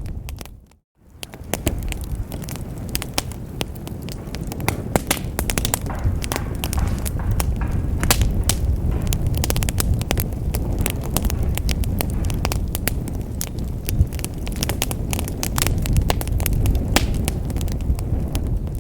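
Wood fire burning in a fireplace: a steady low rumble of flames with frequent sharp crackles and pops from the burning logs. The sound dips to silence for a moment about a second in, then comes back.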